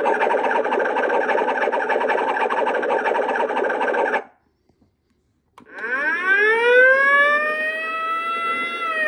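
Toy boom box playing its built-in sound effects through a small speaker: a harsh, buzzy noise effect for about four seconds that cuts off, then after a short pause an electronic siren that rises, holds, and starts to fall near the end.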